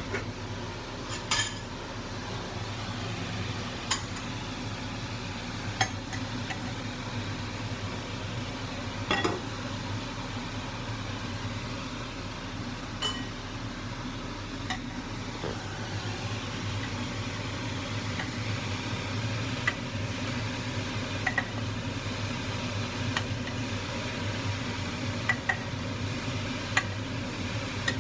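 A ladle stirring soup in a clay pot and clinking against it, with a dozen or so sharp clinks spread through the stretch over a steady background hiss.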